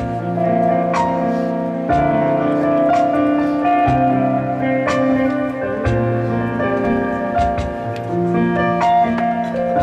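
Keyboard playing slow sustained chords in a piano-like tone, with bass notes changing every second or two.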